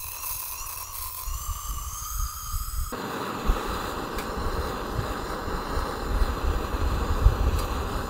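Wind buffeting the microphone with a low rumble; about three seconds in, a handheld butane gas torch starts a steady jet-flame hiss as it is aimed into a small wood stove to light it.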